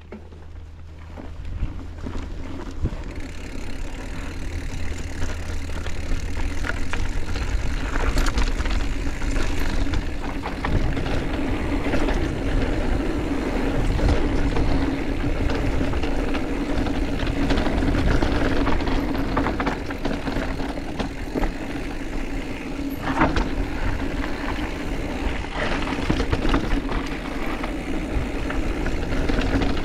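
Mountain bike rolling down a trail: steady rush of tyre and riding noise that builds over the first few seconds as it gathers speed, with sharp knocks and rattles from the bike over bumps.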